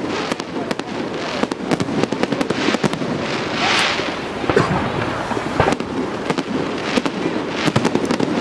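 Fireworks display: a rapid run of sharp pops and bangs, with a burst of hissing crackle a little before the midpoint.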